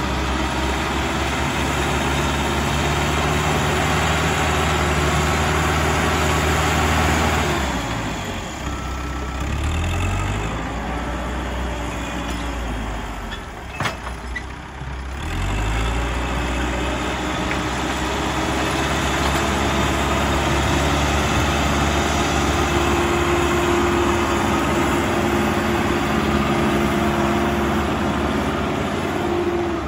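Caterpillar 434E backhoe loader's diesel engine working under load as the front bucket pushes soil; it eases off about eight seconds in, a single knock comes near the middle, and the revs climb back about halfway through and hold steady again.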